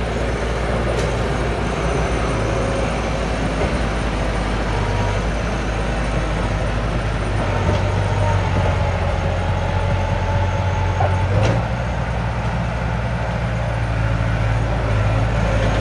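Heavy diesel earthmoving machinery running steadily, with a deep engine drone and a faint thin whine partway through.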